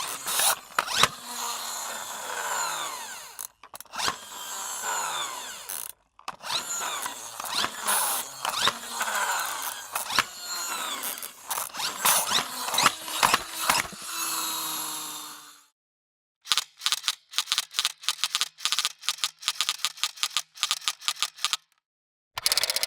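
A toy in its packaging being handled, with a long stretch of rustling, scraping noise and falling squeaks. After a short pause comes a fast run of clicks.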